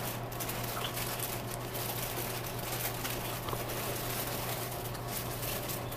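Steady room tone: an even hiss with a low, constant hum and a few faint clicks.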